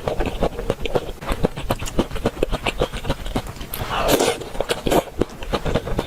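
Close-miked chewing and eating mouth sounds: a quick, irregular run of wet clicks, with a louder noisy burst about four seconds in.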